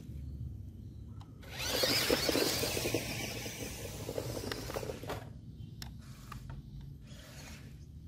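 Small RC model truck's electric motor and gearbox whirring as it drives over muddy ground. It is loud from about a second and a half in and fades after about five seconds, leaving a few faint clicks.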